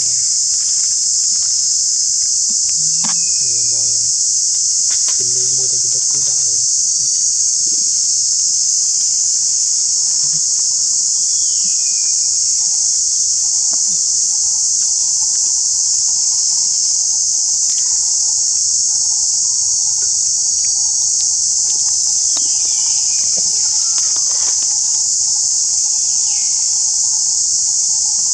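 A loud, steady, high-pitched drone of an insect chorus that never lets up. A few short falling chirps come through it now and then.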